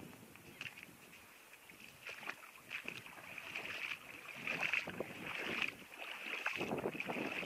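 Irregular splashing and swishing of legs wading through a shallow stream, getting louder after a couple of seconds.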